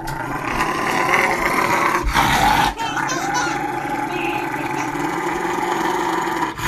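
Rottweiler growling in a long, drawn-out grumble of protest while its nails are being clipped, with a short break about a third of the way through.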